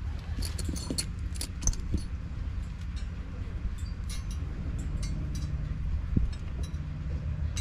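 Small metal clinks and ticks of J-bolts, washers and nylon lock nuts being handled and fitted at a sailboat's steering wheel, coming in two clusters, over a steady low rumble of wind on the microphone.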